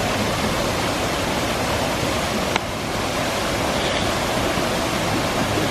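Steady rushing of a waterfall, with one short click about two and a half seconds in.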